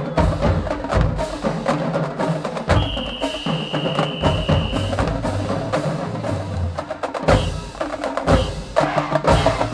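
Marching band drumline playing a cadence: rapid snare drum strokes over bass drum hits. A long, steady high tone sounds for about two seconds near the middle, and the drumline closes on a heavy final hit near the end.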